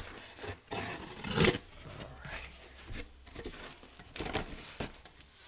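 Cardboard comic-book mailer being pulled open and handled by hand: a sharp click at the start, then a run of short scrapes and rustles of cardboard, the loudest about a second and a half in.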